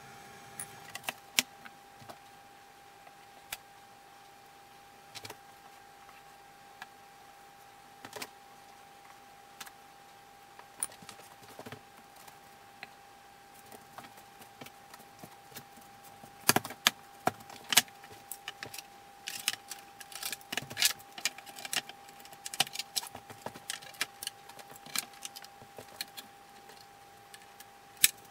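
Scattered knocks of wooden cabinet door panels being handled, then, from about halfway through, a busy run of metal clinks and clicks as steel bar clamps are set and tightened on the glued-up doors. A faint steady hum runs underneath.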